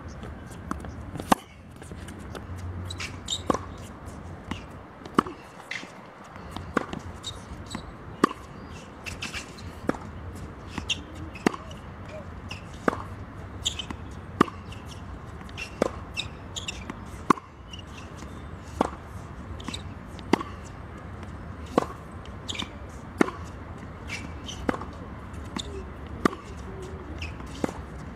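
Tennis balls struck by rackets and bouncing on a hard court during a baseline rally: a sharp pop about every second and a half, with fainter ones between.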